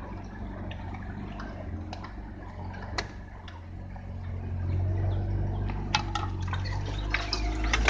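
Jeep engine running low and steady, heard from inside the cab, growing louder about halfway through as it climbs a rough trail. Sharp clicks and cracks come in near the end, branches scraping and snapping against the body.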